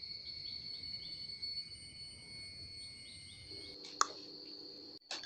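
Insects calling in forest: a steady high-pitched buzz with a chirp repeated a few times a second. About four seconds in it gives way to a sharp click and a soft tone from a subscribe-button sound effect, with another short burst near the end.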